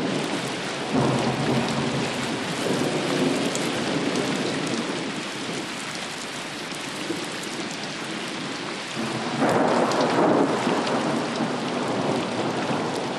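Thunderstorm: steady rain with rolling thunder, one roll swelling up about a second in and a louder one about nine and a half seconds in.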